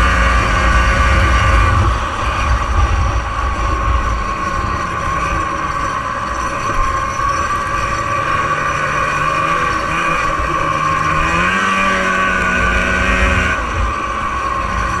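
1989 Arctic Cat Jag 440 fan-cooled snowmobile's two-stroke engine running under way, with a heavy low rumble in the first two seconds. The engine note climbs a little late on and falls off shortly before the end.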